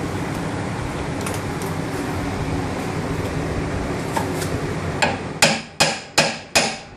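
A steel hammer strikes the steel front steering knuckle of a John Deere Gator 825i at the lower ball joint, knocking the joint loose from the control arm. There is a quick run of about six sharp blows, a little under half a second apart, starting about five seconds in. A steady mechanical hum runs underneath.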